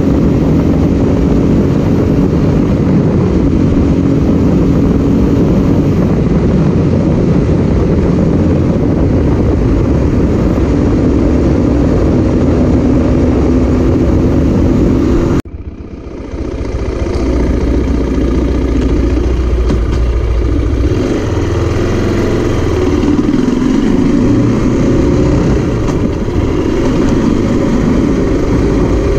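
Zongshen RX3 motorcycle's single-cylinder engine running at road speed, under a steady rush of wind on the microphone. About halfway through, the sound drops out suddenly and comes back duller and lower, the engine note rising and falling at a slower pace.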